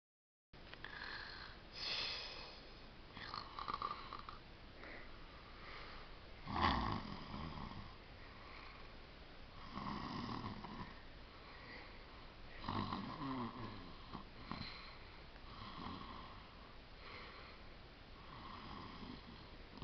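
A girl snoring: a string of separate snores every couple of seconds, the loudest about seven seconds in.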